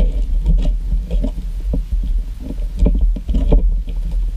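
A spoon stirring glue slime in a plastic bowl just after activator has been added: irregular scraping and clicking of the spoon against the bowl over a steady low hum.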